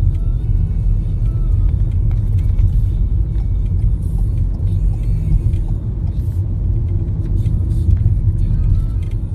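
Steady low rumble of a car driving along, heard from inside the cabin.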